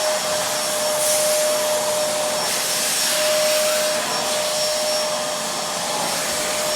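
Fantom DC3000 canister vacuum cleaner running at full suction: a steady loud rush of air with a constant motor whine running through it.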